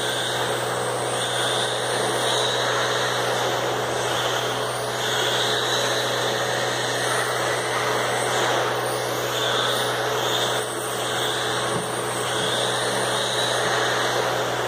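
Radio-controlled cars racing on a carpet track: a high motor whine and tyre noise that swell and fade every second or two as the cars pass and brake for the corners, over a steady low hum.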